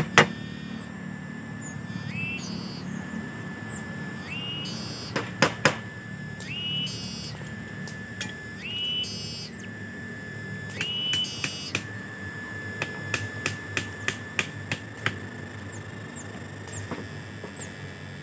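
Knocks and taps on wood: three sharp knocks about five seconds in and a run of lighter taps past the middle. Under them runs a high, steady whistling tone that steps up in pitch about every two seconds.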